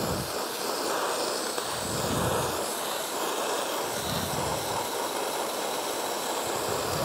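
MicroClean dry ice blaster's nozzle blasting a car's painted bumper at a low 30 PSI: a steady hiss of air and dry ice. At this pressure it cleans without damaging the paint.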